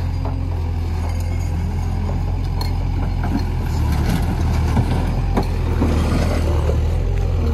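Takeuchi TL130 compact track loader's diesel engine running steadily under load as the bucket pushes into a pile of broken asphalt and concrete rubble. Scattered knocks and clatter of the chunks shifting. It grows a little louder about halfway through.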